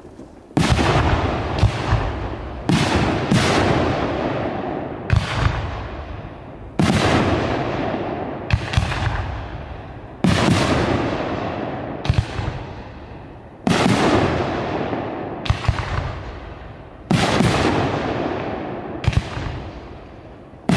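Aerial fireworks bursting one after another. A loud bang comes roughly every three and a half seconds, each with a long echoing tail, and smaller bangs fall in between.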